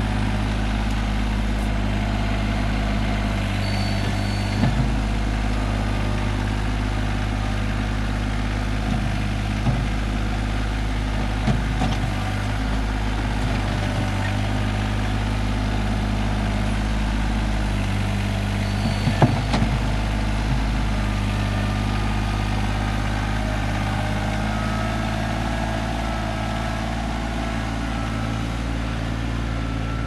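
TYM T25 compact tractor's diesel engine running steadily while the front loader pushes dirt, with a few short knocks from the bucket and loader, the loudest a little past halfway. The engine gets slightly quieter near the end.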